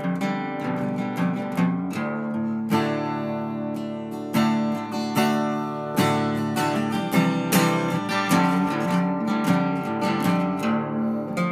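Background music: guitar, plucked and strummed in a steady run of notes.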